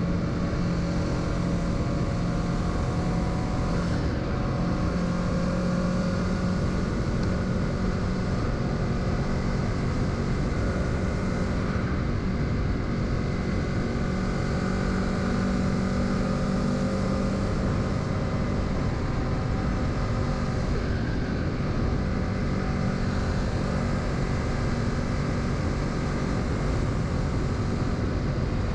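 Kawasaki Z650's parallel-twin engine running steadily under way, its pitch drifting a little up and down with the throttle, over a continuous rush of road and wind noise.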